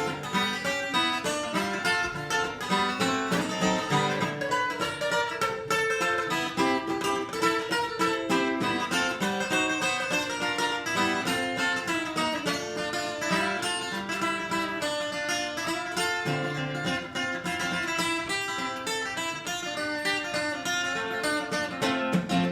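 Instrumental break of a swing-rhythm country song, led by plucked guitar playing a quick run of notes over a steady rhythm backing.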